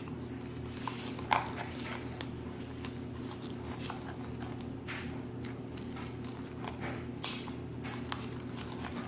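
A utensil stirring glue-based slime in a container, giving scattered clicks and scrapes, the sharpest about a second in, over a steady low hum.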